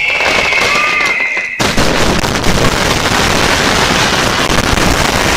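Fireworks: a steady high whistle, then about a second and a half in a sudden dense barrage of bursts and crackling that keeps going.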